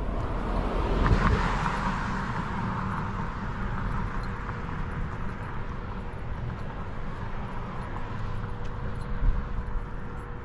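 A vehicle passing, loudest about a second in, then fading into a steady low rumble and outdoor noise.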